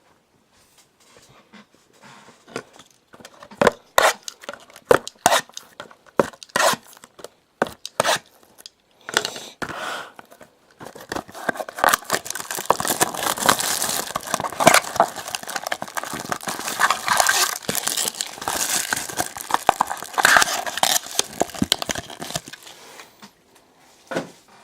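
Trading card packaging being opened by hand: a run of sharp clicks and taps, then about ten seconds of crinkling and tearing wrapping.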